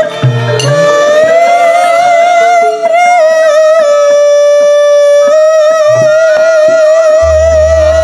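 A female sinden sings long held notes with a wide vibrato through a microphone, over light percussion taps. A low sustained bass tone comes in near the end.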